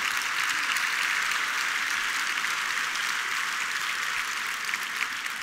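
Large theatre audience applauding, a dense steady clapping that begins to ease off near the end.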